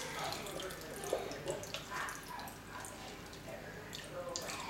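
Kitchen mixer tap running a thin stream of water, trickling and splashing into the sink and over a baby's hands and mouth; near the end the stream runs into a plastic cup.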